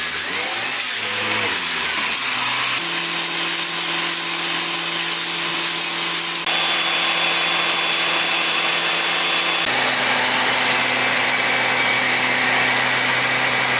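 Self-loading concrete mixer truck running, its YuChai 3.85-litre four-cylinder diesel holding steady speeds over a steady hiss. The engine's pitch changes in steps a few times: about three seconds in, midway, and about ten seconds in.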